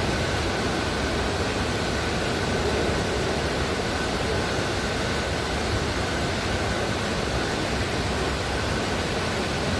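Steady outdoor rushing noise with a faint high-pitched hum running under it.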